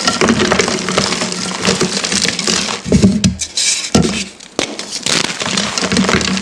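Dyed crumbly "freshies" being crushed, a dense crunching and crackling with many small snaps. It eases off briefly a little past halfway.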